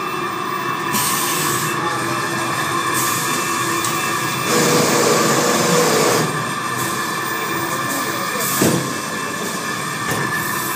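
Automatic mop-making machine running: a steady mechanical whir with several steady tones. It is broken by three bursts of hissing in the first six seconds, the last the loudest and longest, and by a single short knock about nine seconds in.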